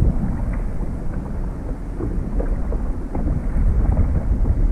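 Wind buffeting the camera microphone in a steady low rumble, with choppy water lapping and slapping against the plastic kayak hulls in small scattered splashes.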